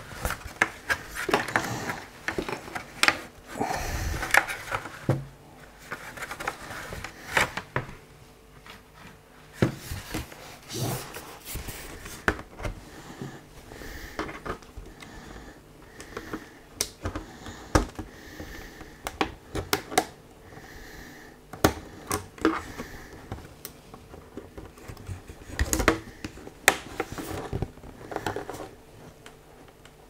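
Plastic clicking, snapping and scraping as the bottom cover of an LG Gram 16 (2022) laptop is pried and worked against the tabs that hold it on. There are many sharp irregular clicks, bunched around the start, the middle and near the end.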